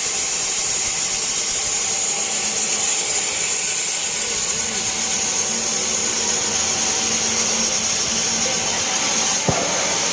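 Band sawmill blade cutting lengthwise through a large teak log: a steady, high-pitched rushing saw noise, with a brief knock near the end.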